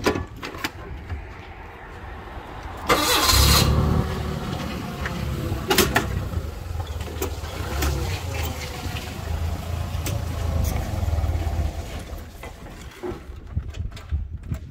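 Forklift engine starting about three seconds in, then running steadily; it quietens near the end.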